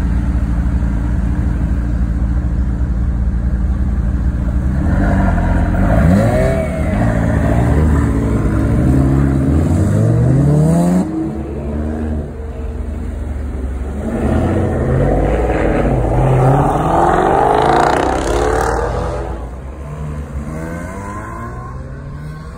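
Car engines revving hard as cars pull away and accelerate, the pitch climbing and dropping back through gear changes in two runs, the first about five seconds in and the second about fourteen seconds in, then fading off near the end.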